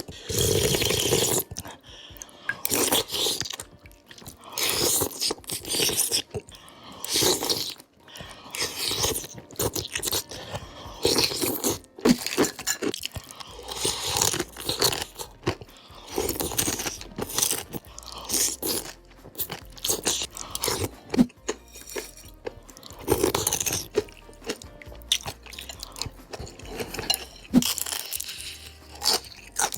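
Close-miked crunching and chewing of crisp food, bite after bite at an irregular pace.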